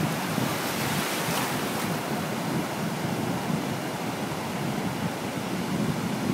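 Shallow surf washing in over sand: a steady hiss of foaming seawater that swells briefly about a second in. Wind rumbles on the microphone underneath.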